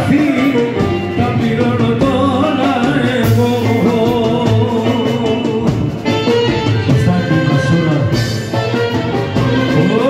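Live Greek folk music played loud through PA speakers: clarinet and bouzouki with a drum kit, and a male voice singing the melody.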